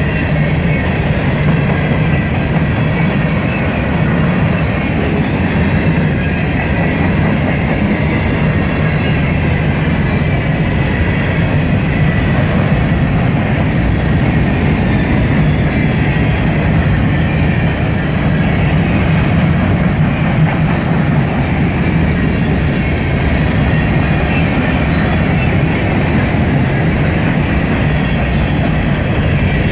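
Covered grain hopper cars of a freight train rolling past close by: a steady, loud rumble of steel wheels on rail, with a thin high-pitched tone running through it.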